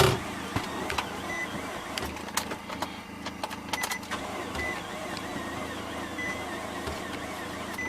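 2009 Nissan Rogue's engine being cranked by the starter without catching. The owner traces the no-start to a seized A/C compressor that has locked up its cracked serpentine belt.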